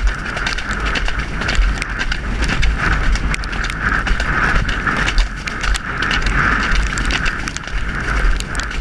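A horse's hoofbeats on a wet track under a steady rumble of wind buffeting the helmet camera, with many small clicks and rattles of tack throughout.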